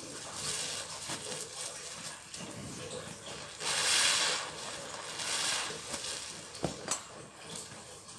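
A sponge being squeezed and pressed in thick soap suds and water, making wet squelching sounds in uneven swells. The longest and loudest squeeze comes about four seconds in.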